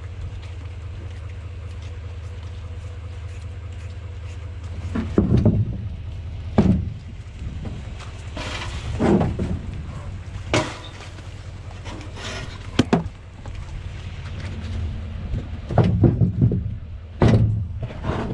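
Pickup truck engine idling with a steady low hum, with several short, louder knocks and scuffs over it.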